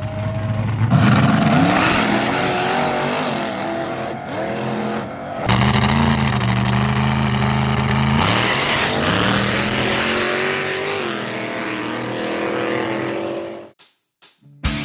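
Street race car engines revving hard at high rpm: the revs climb about a second in, and after an abrupt cut about five seconds in an engine is held high and steady, then falls off and builds again. The sound stops suddenly near the end.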